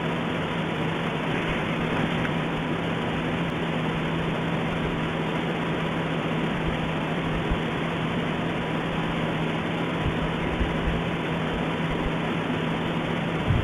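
Steady rushing noise with a constant low hum and a few faint low thumps, which the uploader presents as strange sounds from Popocatépetl volcano.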